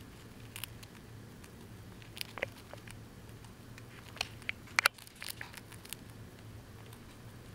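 Dwarf hamster eating, a scatter of small crisp crunches and clicks at irregular intervals as it nibbles its food, the loudest a quick pair about five seconds in.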